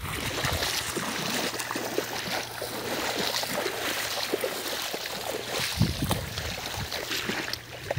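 Shallow floodwater splashing and sloshing in irregular strokes over a steady hiss, fuller and louder from about six seconds in.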